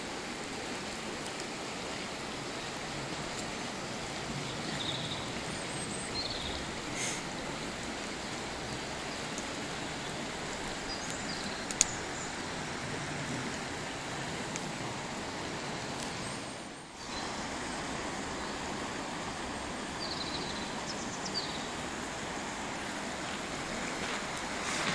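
Steady rushing of a river flowing over stones, with a single sharp click about twelve seconds in.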